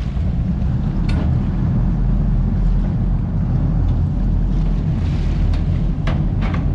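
Lifeboat's diesel engines running with a steady low rumble, with wind buffeting the microphone; a few short knocks about a second in and near the end.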